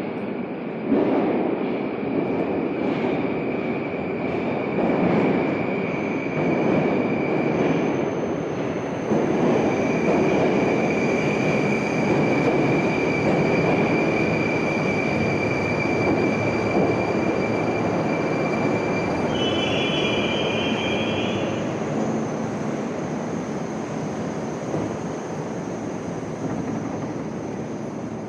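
Moscow metro train running into the station: a loud rumble of wheels and running gear with a steady high whine, then a short wavering squeal about twenty seconds in as it brakes to a stop, after which the noise slowly dies down.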